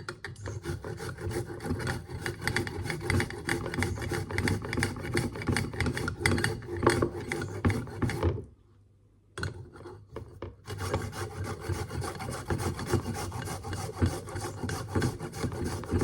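Fresh ginger root rubbed on a hand grater: fast, repeated rasping strokes. They stop for about a second a little past halfway, then resume.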